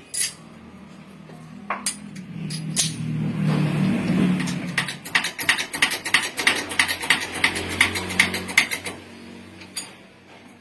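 A new rear shaft bearing is fitted onto a Toyota Avanza manual transmission shaft with a few separate clicks, then a quick run of sharp taps, about four or five a second. A low hum swells around the middle.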